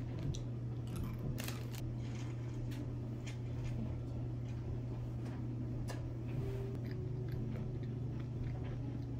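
A person chewing jelly sweets, with small clicks and rustles from the plastic snack bag, over a steady low hum.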